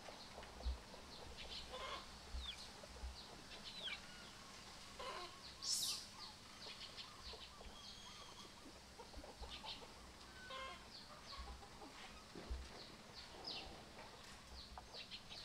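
Farmyard poultry clucking, with scattered short bird chirps and calls, some sliding in pitch; one louder, sharper squawk about six seconds in.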